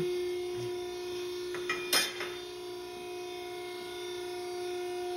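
Iroquois SPP40/75 hydraulic ironworker's motor and pump running with a steady hum. A sharp clank of steel angle iron being handled about two seconds in, with a few lighter ticks just before it.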